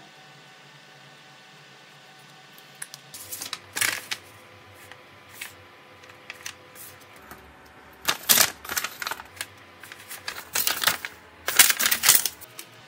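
A folded sheet of paper crinkling and rustling as it is handled, in three bouts of sharp crackles: around three to four seconds in, around eight seconds in, and a longer bout near the end.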